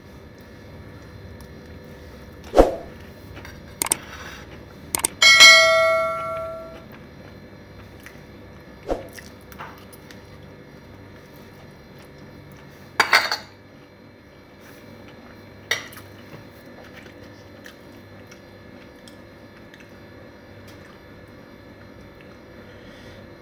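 An eating utensil clinking and scraping against a plate of noodles, in scattered single strikes and small clusters. One strike about five seconds in rings out for about a second and a half.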